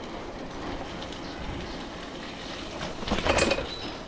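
Steady road and wind noise from riding a bicycle, with a louder rush lasting about half a second, around three seconds in.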